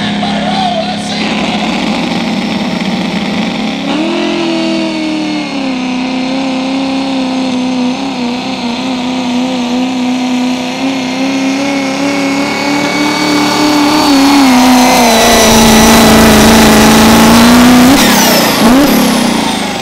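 Turbocharged diesel pulling truck at full throttle, its engine held at high revs with a steady turbo whistle and growing louder as it comes down the track. Near the end the throttle lifts and the turbo winds down.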